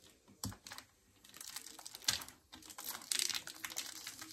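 Plastic vacuum storage bag full of clothes being handled as its press-seal zip closure is pinched shut: a few sharp clicks in the first second, then rustling, crinkling plastic.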